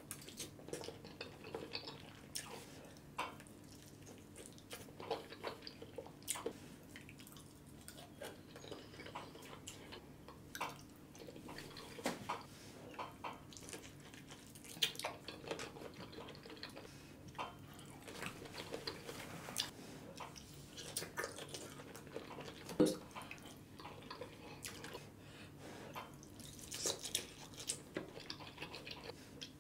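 Close-miked wet eating sounds: lip smacks, sucking and chewing as king crab meat is pulled from the shell and Alfredo sauce is licked off the fingers, heard as many irregular short clicks over a faint steady hum.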